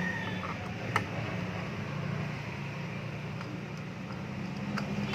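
Small sharp clicks of a screwdriver and screws on a laptop's plastic back cover as the two cover screws are taken out: one clear click about a second in, a few fainter ones near the end, over a steady low hum.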